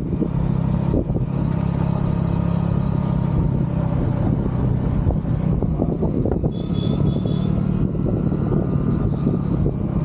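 Small commuter motorcycle engine running at a steady cruise, heard from on the bike, with wind rushing over the microphone.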